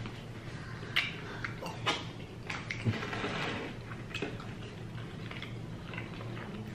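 Close-up chewing and crunching of hard-shell tacos, with scattered short crackles and a denser run of crunching about three seconds in.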